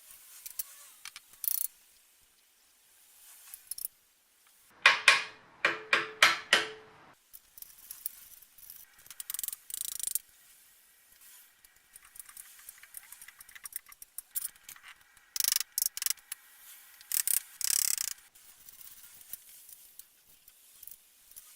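Metal workshop sounds from hand work on the subframe's parts: a quick run of sharp, ringing metallic clicks about five to seven seconds in, then scattered clinks and short noisy bursts.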